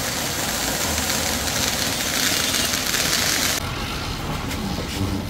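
Flower pot (anar) firework fountain spraying sparks with a loud, steady hiss that cuts off abruptly about three and a half seconds in.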